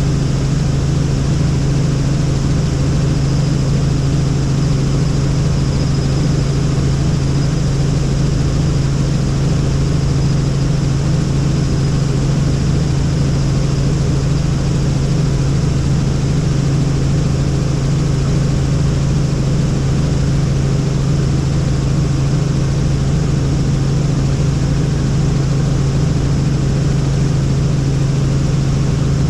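Helicopter in flight: its engine and rotor running with an even, unbroken drone, a strong low hum under a rushing, wind-like noise.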